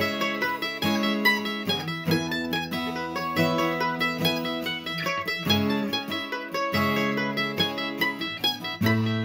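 Background music: an acoustic plucked-string instrumental of quickly picked notes over held chords.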